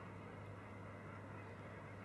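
Low, steady drone of a large ship's engines heard across the water, faint and unchanging.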